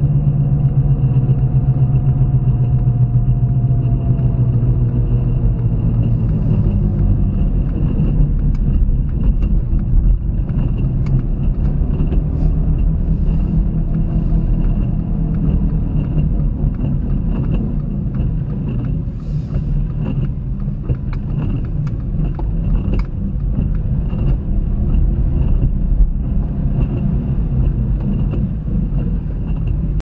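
Car cabin noise picked up by a dashcam on a wet road: engine and tyre rumble that falls in pitch over the first few seconds as the car slows, then a lower, rougher rumble with scattered small clicks as it rolls slowly through a parking lot.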